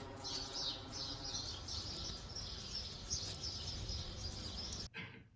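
Small birds chirping and twittering over and over, above a faint steady hum. It cuts off abruptly about five seconds in.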